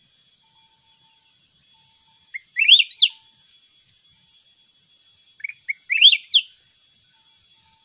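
A caged bulbul (Vietnamese chào mào núi) sings two short phrases about three seconds apart. Each phrase is a quick run of notes, each note sweeping upward in pitch.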